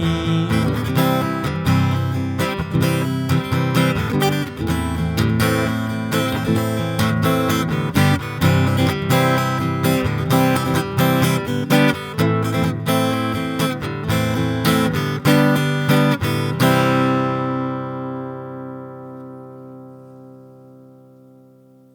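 Acoustic guitar strummed in a steady rhythm as the song's closing instrumental, ending about three-quarters of the way through on a final chord that is left to ring and slowly fade out.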